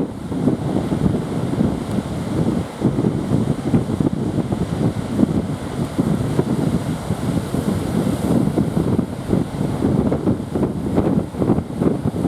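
Strong wind buffeting the microphone, a rough fluctuating rumble, over the wash of heavy sea surf.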